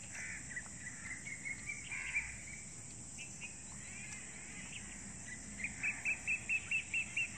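Steady high-pitched drone of insects, with a bird giving scattered short notes and then, near the end, a quick series of short repeated chirps, about four a second.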